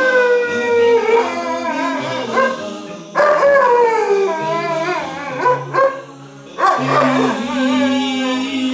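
Afghan hound howling along to music, three long howls that each slide down in pitch, over an a cappella vocal-group song with sustained chords and a sung bass line.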